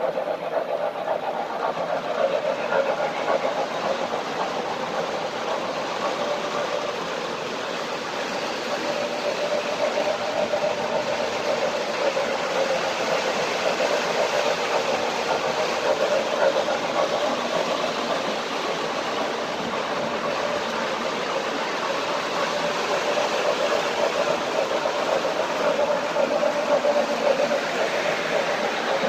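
Two O-gauge model trains running on a two-level layout, a steam locomotive and a diesel each pulling freight cars: a steady running sound of wheels on the track with a constant hum.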